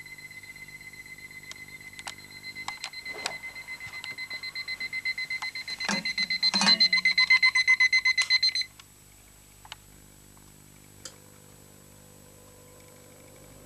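An electronic alarm beeping fast and high-pitched, about five beeps a second, growing louder and then cutting off suddenly about nine seconds in. A few sharp clicks and knocks sound along with it.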